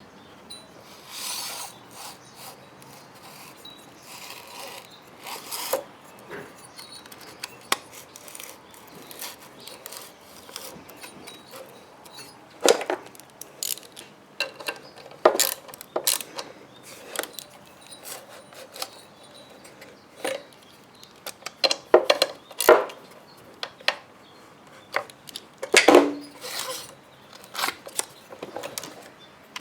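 Hand tools working on a Lawn-Boy mower engine as the replacement ignition coil is bolted down: scattered metallic clicks and knocks with a few brief scrapes, on and off throughout.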